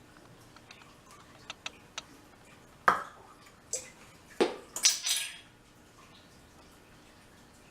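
Kitchen utensils and dishes knocking and clinking as flour is measured out: a few light taps, then several sharp knocks and a short clatter from about three to five and a half seconds in.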